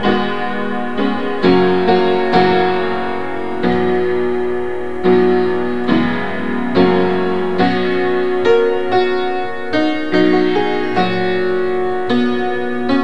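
Piano played slowly, chords struck about once a second and left to ring and fade, in a piece built around added dissonance.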